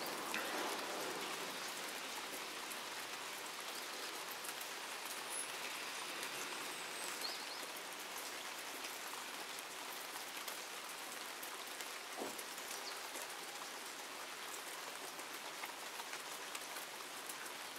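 Steady rain falling on wet paving, an even hiss with scattered drops; one sharper tap about twelve seconds in.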